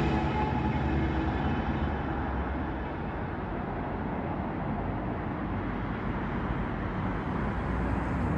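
A passing vehicle's engine rumble fading away over the first couple of seconds, then steady traffic noise that swells again toward the end as another vehicle approaches.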